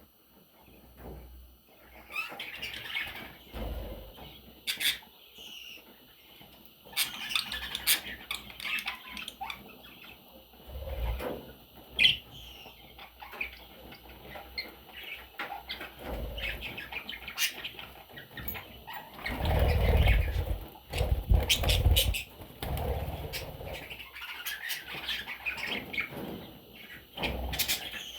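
Budgerigars chirping in short, scattered calls, with wing flapping and low thuds and rustling that peak about twenty seconds in.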